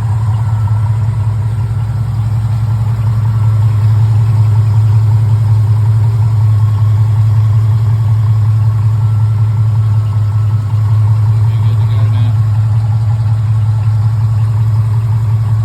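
1980 Jeep CJ7's engine idling steadily, a little louder after a few seconds.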